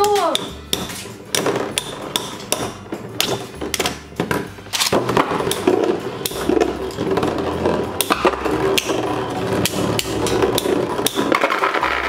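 Two metal-rimmed Infinity Nado 3 spinning tops battling in a plastic stadium: repeated sharp clacks as they strike each other and the bowl, over the steady whir of their spinning.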